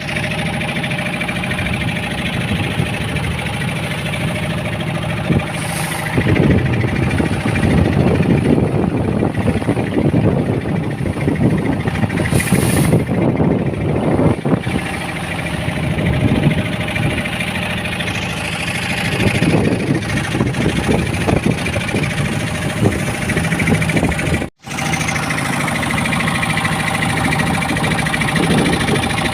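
A boat's engine running steadily under way, with a rushing noise swelling and fading over it. The sound cuts out for an instant about 24 seconds in.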